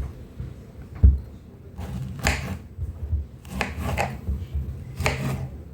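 Handling noises: a dull knock about a second in, then several short scrapes.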